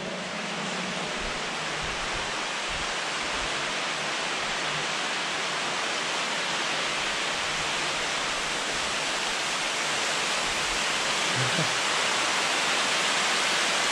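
Steady rushing hiss of falling water, growing gradually louder toward the end.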